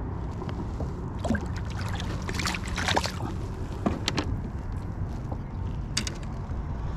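Steady low rumble with scattered sharp clicks and rattles of fishing gear being handled aboard a kayak, busiest between about one and four seconds in, with one more click about six seconds in.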